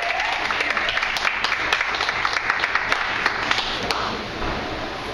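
Audience clapping at the end of a performance: many hands at once. It thins out and dies away after about four seconds.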